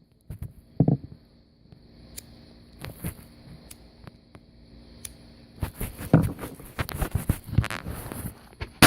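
Rustling, scraping and footstep-like handling noises while a small firecracker is thrown. Near the end comes a single sharp bang from a Black Cat firecracker going off.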